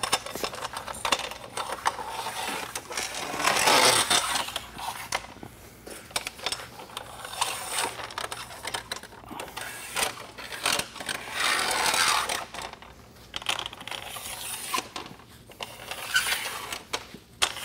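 Metal bolts being slid along the channels of an aluminium Ionic running board, scraping and clicking against the extrusion as they are pushed into evenly spaced pairs. Scattered sharp clicks, with a few longer scrapes as a bolt is pushed a long way down a channel.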